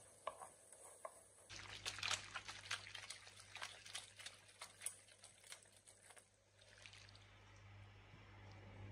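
Fresh orecchiette in a thick sauce being stirred and tossed in a nonstick frying pan: wet squelching with quick sticky clicks, starting about a second and a half in and easing off after about six seconds.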